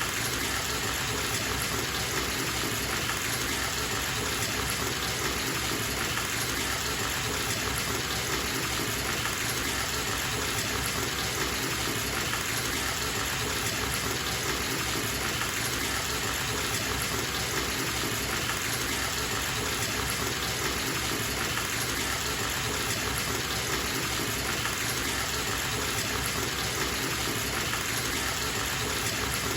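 Bathtub tap running steadily, a continuous gush of water into the tub.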